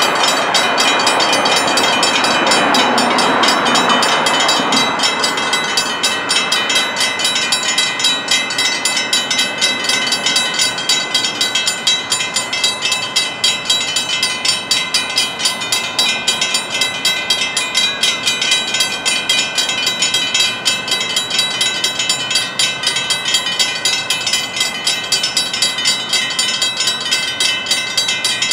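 Railroad grade-crossing warning bells ringing fast and steadily as the crossing activates and the gates come down, warning of an approaching train. A louder rush of passing road traffic fills the first few seconds.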